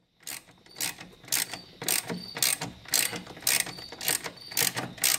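Socket ratchet clicking in short repeated strokes, about two a second, as it turns a 13 mm socket on a wobble extension to loosen the nuts holding the brake master cylinder to the booster.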